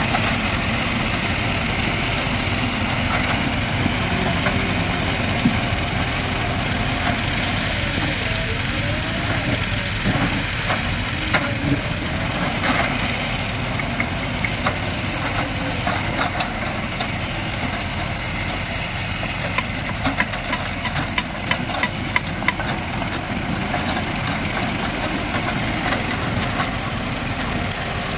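A JCB 3DX backhoe loader's diesel engine running steadily while the machine moves and works its front loader bucket. From about ten seconds in there are scattered sharp knocks and clatter.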